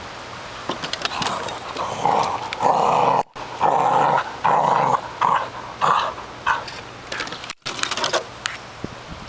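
A dog snarling and growling in a run of short loud bursts, several seconds long, loudest in the middle.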